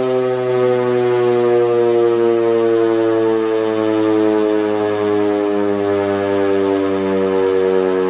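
Horizontal Super Sirex dual-tone tornado warning siren sounding during a test, holding its two-note chord loud and steady while the pitch sags slowly downward, with gentle swells in loudness.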